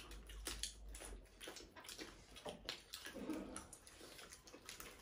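People eating with their hands: soft, wet chewing and lip-smacking with many small clicks, faint throughout.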